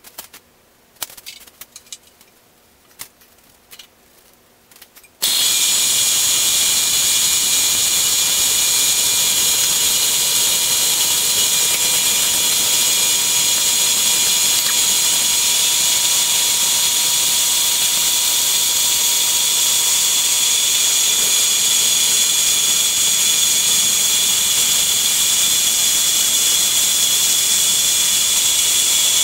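A few clicks and knocks of handling, then about five seconds in a horizontal metal-cutting band saw starts and cuts steadily through steel box tube: a loud, even high hiss of the blade with a few steady tones under it. The blade has just been tightened to stop it cutting crooked.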